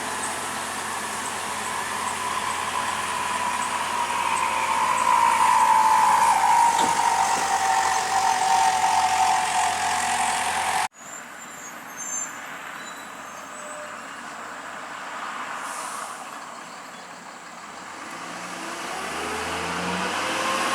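A heavy diesel vehicle passing close while climbing, its whine falling in pitch as it goes by. About halfway through the sound cuts off abruptly. Then another heavy truck's diesel engine approaches under load, its pitch rising near the end.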